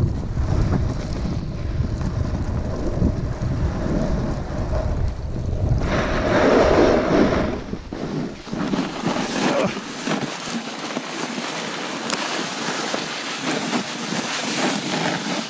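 Wind buffeting the microphone, then a louder rush about six seconds in. From about eight seconds in a snowboard hisses and scrapes over the snow as it rides downhill.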